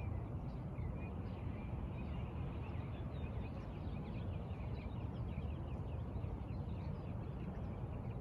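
Many small birds chirping and twittering, short quick calls all through, over a steady low rumble.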